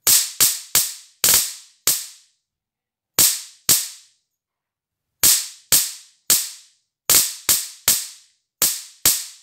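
Electric sparks snapping across the output electrodes of a cheap high-voltage generator module (sold as 400 kV): about fifteen sharp cracks at irregular intervals, some in quick pairs and threes. The module is working.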